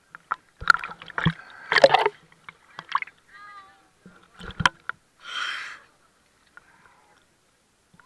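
Seawater sloshing and splashing against a camera held at the surface as small waves wash over it, in irregular bursts with sharp knocks and a short fizzing splash about five seconds in.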